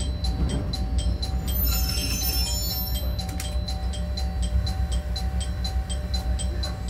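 KiHa 52 diesel railcar running slowly with a steady low engine rumble, under music with a steady beat of about four ticks a second. A brief high-pitched squeal comes about two seconds in.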